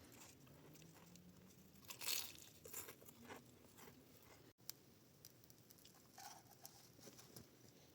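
Faint, scattered crunching and rustling, a few short crisp sounds with the loudest about two seconds in, against quiet background.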